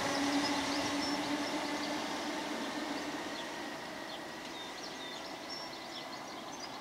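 Electric multiple unit pulling away and receding, its running noise and a low steady hum fading as it goes, with small bird chirps over it.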